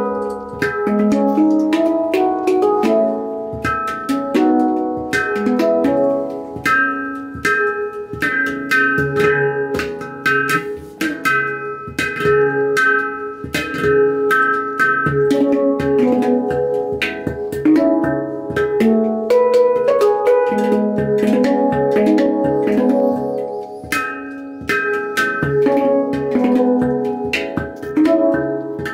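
Steel handpan played with the fingertips: a continuous flowing melody of struck, ringing notes, with quick percussive taps between them.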